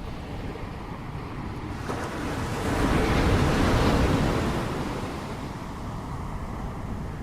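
Ocean waves breaking on a shore: a low steady wash of surf, with one wave building and crashing about three seconds in, then washing back down.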